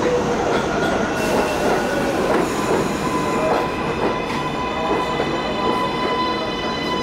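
New York City Subway trains on an elevated steel line: a steady rumble and rattle of wheels on rail. About a second in, a steady high whine of several pitches joins it and grows fuller a couple of seconds later, as the arriving 7 train nears the platform.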